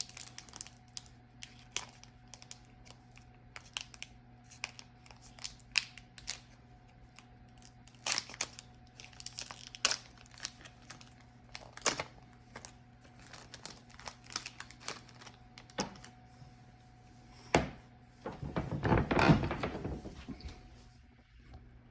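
Trading cards from a freshly opened pack being handled one at a time, with scattered light taps and clicks as they are slid, flipped and set down on a table. A louder rustle lasts about two seconds near the end. A faint steady hum runs underneath.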